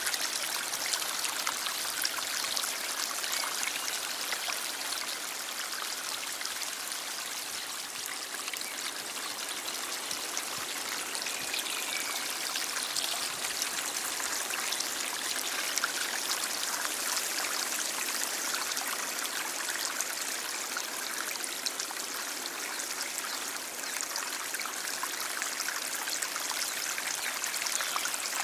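Stream flowing: a steady rush of running water with many small splashes.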